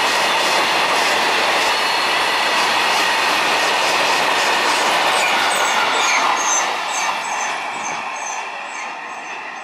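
A loaded coal freight train's hopper wagons run past at speed, a steady rumble with the wheels clattering over rail joints. Short high squeaks repeat a few times a second in the second half. The sound fades about two-thirds of the way through as the last wagon passes and draws away.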